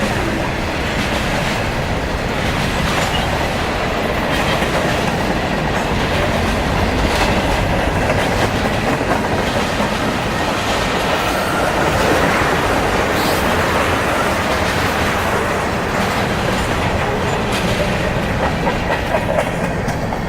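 Railcars rolling past, their wheels clacking over rail joints under a steady rumble.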